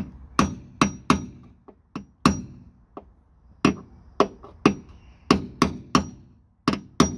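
Hammer striking a steel parallel-sided punch held against a car sill's bent pinch weld, tapping the jack-damaged seam flat. About a dozen sharp metallic taps come at an uneven pace, several with a short ring.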